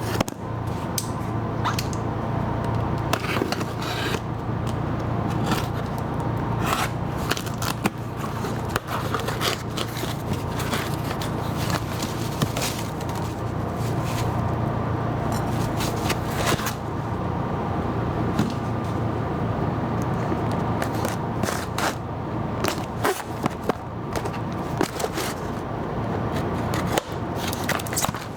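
Irregular scraping, clicking and knocking over a steady low hum.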